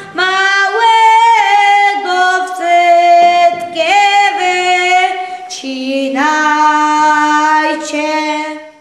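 Women and a boy singing a slow folk song together without accompaniment, in long held notes. The last note is held for about two and a half seconds and fades out just before the end.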